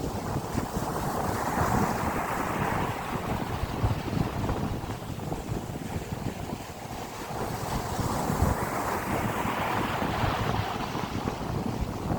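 Wind on the microphone: a constant gusty rumble, with two long swells of rushing sound that build and fade, each lasting about five seconds.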